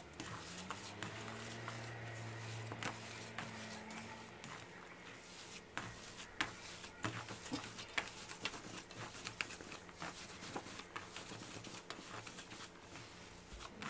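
Hand kneading a moist, crumbly bulgur and mashed-potato köfte mixture in a dimpled metal tray: faint squishing and crumbling with many light, irregular clicks. A faint low hum runs under the first few seconds.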